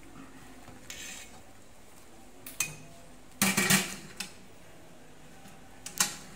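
Metal kitchen utensils clinking and knocking against a stainless steel stockpot and a wire mesh strainer: a few separate knocks, the loudest cluster a little past the middle and a single sharp one near the end.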